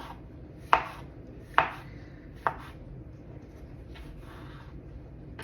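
Knife slicing a mushroom on a cutting board: three sharp taps of the blade hitting the board about a second apart, then a fainter tap and a short scrape near the end.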